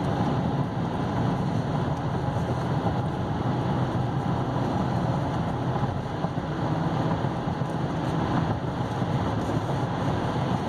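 Steady road and tyre noise with a low engine hum inside the cab of a 2016 GMC Canyon V6 pickup cruising at about 64 mph.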